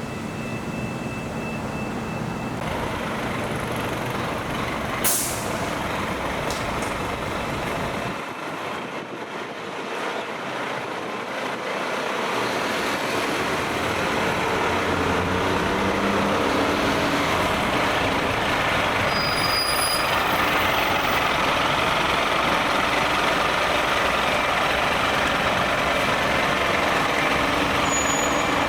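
Fire truck's diesel engine running, with one sharp air-brake hiss about five seconds in; the engine noise dips briefly and then grows louder and steadier from about halfway through.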